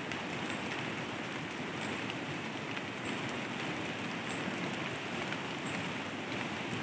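Steady rain falling on rainforest leaves, a constant even hiss.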